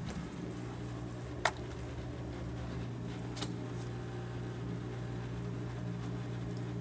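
A steady low machine hum, with a sharp click about a second and a half in and a fainter click about three and a half seconds in.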